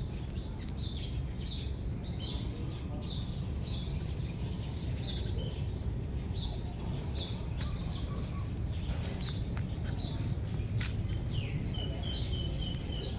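Small birds chirping, short high chirps repeated about twice a second with a few quick runs of notes, over a steady low rumble.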